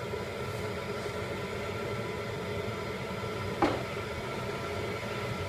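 Steady low rumble of a propane burner firing under a kettle-corn kettle while the oil heats. One sharp knock comes about three and a half seconds in.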